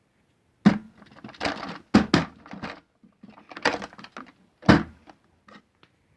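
A string of hard knocks and clattering clicks, as of hard objects being handled and set down, with short pauses between. The three loudest knocks come just under a second in, about two seconds in, and near five seconds in.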